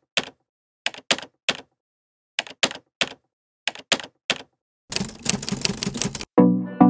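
Typewriter sound effect: short bursts of three or four key clacks about every second and a half, then a fast run of clacks about five seconds in. Music with a regular beat starts near the end.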